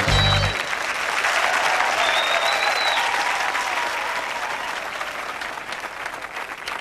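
Audience applauding and cheering as a song ends. The music stops about half a second in, and the applause slowly fades.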